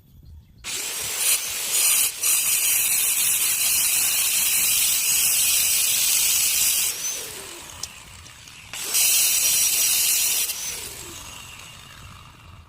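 A power tool grinding stone, run in two stretches with a hissing, high-pitched noise; the second stretch trails off as it winds down.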